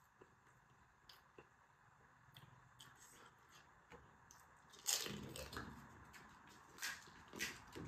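Eating a pani puri: a few faint mouth clicks, then about five seconds in a sudden loud crunchy, wet bite into a hard fried puri shell filled with spiced water, followed by a couple of shorter crunches while chewing.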